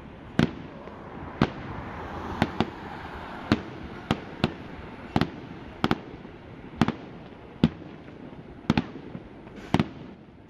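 Fireworks display: about a dozen sharp bangs of bursting shells at uneven intervals, roughly one a second, over a steady background hiss.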